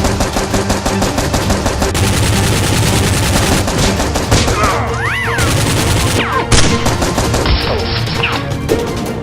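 Sustained rapid automatic gunfire, shots coming in a dense, unbroken stream, with background music underneath.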